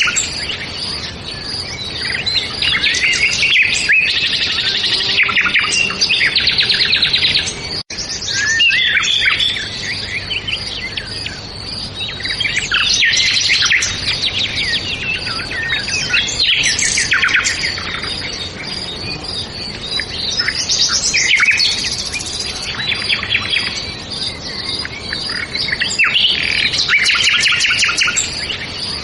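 Many songbirds chirping and singing at once, a dense overlapping chorus of high chirps and rapid trills, with a momentary break in the sound about eight seconds in.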